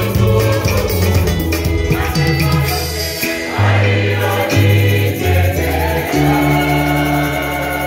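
A church choir singing a Swahili hymn in many voices, over held low bass notes and rhythmic percussion.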